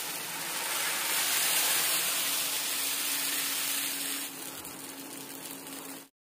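Batter sizzling in a hot iron pan over a gas flame: a steady hiss, louder for a few seconds in the middle, with a faint steady hum underneath. It cuts off just before the end.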